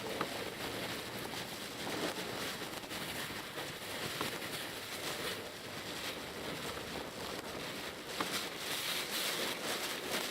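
Driving through typhoon rain in a Mitsubishi Pajero Mini: a steady hiss of rain and wet-road tyre noise, with scattered sharp ticks of drops striking the car.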